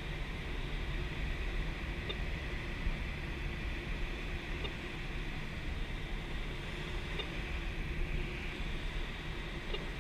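Steady rush of air over the canopy of an ASK 13 glider in flight, heard from inside the cockpit, with no engine.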